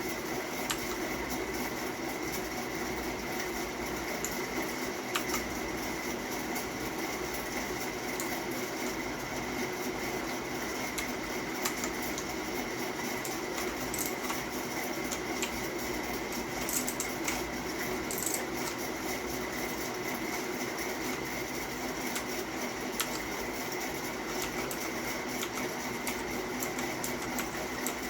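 Steady mechanical hum with a constant high whine, broken by a few scattered sharp clicks.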